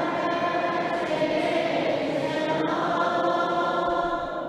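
A choir of deacons and boys singing a slow Syriac Orthodox liturgical chant, with several voices holding long, steady notes together.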